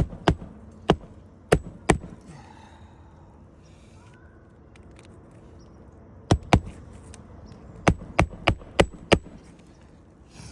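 Hammer blows on an asphalt-shingle roof: a quick run of sharp strikes, a pause of about four seconds, then two more runs of strikes, the last five in quick succession.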